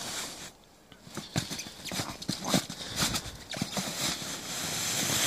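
Boots crunching and shuffling in packed snow against a plastic sled, a series of irregular crunches, then a hiss that grows louder over the last second or so as the plastic sled slides over the snow.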